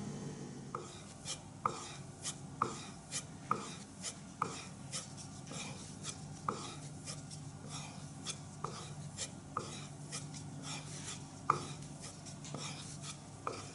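A bar of white polishing compound rubbed back and forth along a strop, a short scraping stroke about once or twice a second. A steady low hum runs underneath.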